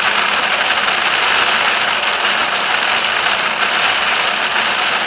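Heavy rain falling on a car driving on a motorway: a loud, steady, dense hiss that does not let up.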